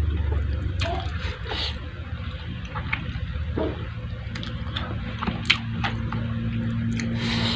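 Close wet mouth sounds of eating: chewing with scattered lip smacks and clicks.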